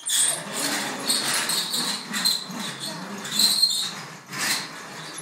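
Plastic toy dump truck pushed along a hard floor, its wheels rolling and scraping in a continuous noise with a few short high squeaks.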